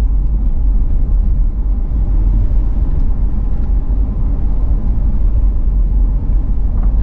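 Steady low rumble of a car driving on a paved road: engine and tyre noise heard from inside the cabin.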